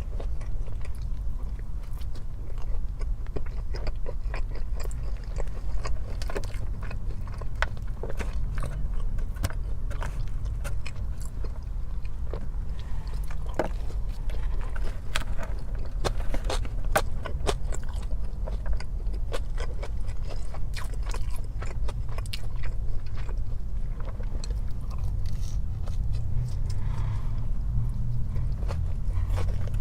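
Close-miked eating: biting and chewing with many irregular wet mouth clicks over a steady low hum.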